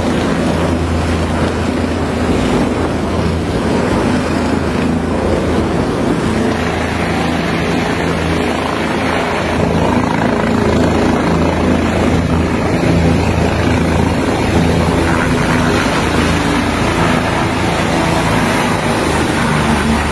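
Light turbine helicopter descending and touching down on a helipad: a loud, steady rotor drone with a low throb, thick with rotor-wash noise.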